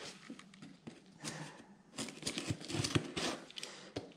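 Hands handling a cardboard shipping box: an irregular run of soft scrapes, rubs and light taps of the cardboard, with a pocket knife brought to the packing tape near the end.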